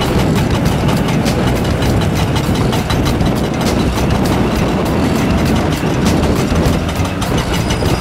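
Komatsu PC400 excavator's diesel engine running under load while its Xcentric Ripper XR40, a hydraulic eccentric impact ripper, hammers into limestone with a rapid, irregular rattle of knocks and rock breaking.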